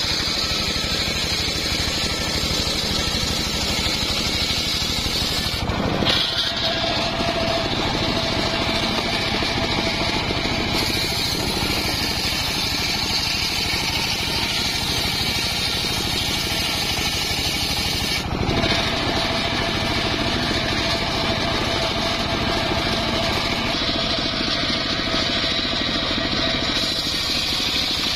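Homemade engine-driven circular saw bench running steadily, its toothed blade ripping a log lengthwise into rafter timbers. The sound breaks off briefly twice.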